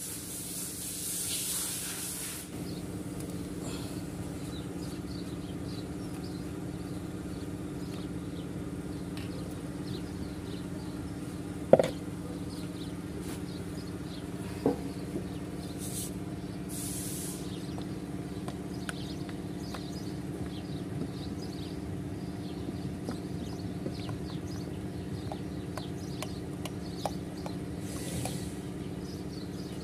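Steady drone of an engine running, with a sharp knock about twelve seconds in and a softer one a few seconds later. Near the end there is a short hiss as oil pours into a plastic funnel.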